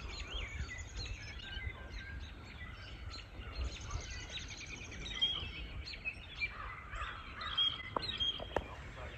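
Several small wild birds chirping and singing, with overlapping short high calls and brief trills, over a low steady rumble; a couple of faint clicks near the end.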